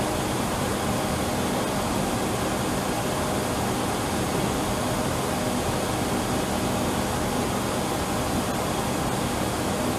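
Steady rush of air-conditioning airflow with a faint steady hum in the cockpit of an Embraer 175 on the ground, its APU running, as the cabin is pressurized in manual mode and differential pressure begins to rise.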